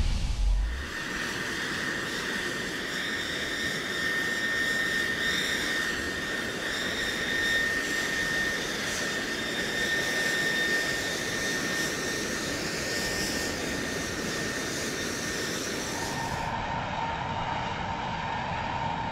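Boeing MQ-25 Stingray's Rolls-Royce AE 3007N turbofan running on the ground: a steady high turbine whine over a rushing jet noise. A low boom fades in the first second, and near the end the sound switches abruptly to a lower-pitched whine.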